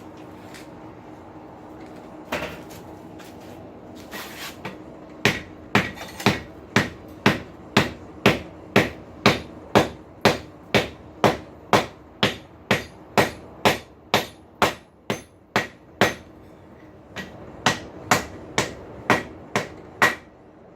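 Hand hammer striking a hot steel rasp on an anvil, bending it: a few single blows, then a steady run of sharp strikes about two a second, a brief pause, and another run of strikes, over a steady hum.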